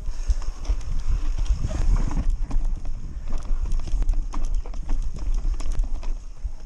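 Nukeproof mountain bike ridden fast down a dirt trail: a steady low rumble of wind buffeting the microphone and tyres on the ground, with a rapid, irregular clatter of knocks and rattles from the bike over bumps.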